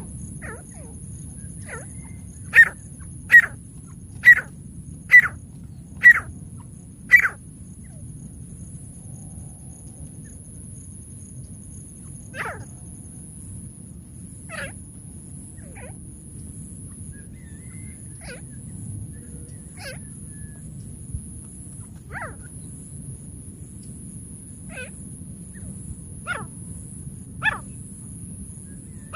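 Francolin (teetar) calls used as a hunting lure: a run of six loud, sharp calls about a second apart a couple of seconds in, then scattered fainter calls. A steady hiss runs underneath.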